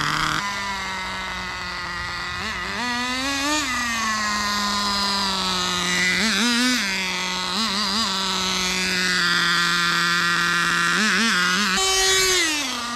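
Small nitro glow engine of a turbocharged HSP RC car running at a high, steady screaming pitch, with several quick throttle blips and a falling pitch near the end as it lets off. It is held in first gear: the transmission won't shift into second.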